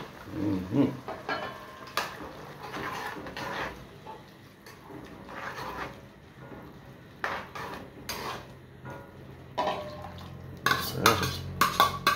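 A spoon stirring shrimp in sauce in a pot, scraping and clinking against the pot, with a run of quicker, louder knocks near the end.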